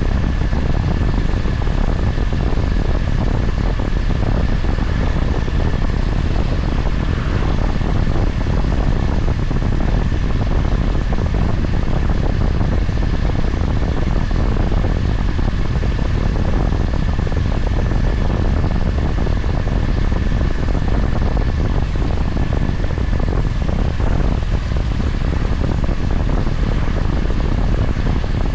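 Honda GB350's single-cylinder engine running at a steady cruise with wind rushing over the microphone, the level unchanged throughout, with a thin steady high tone over the rumble.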